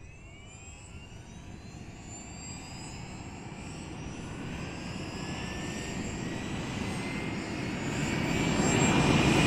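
A swelling build-up sound effect, a rushing noise with thin tones that slowly rise in pitch, growing steadily louder, like a jet engine spooling up.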